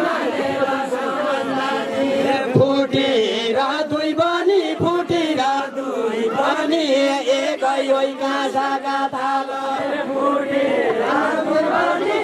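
A group of men chanting a deuda folk song together, unaccompanied, in long drawn-out held notes.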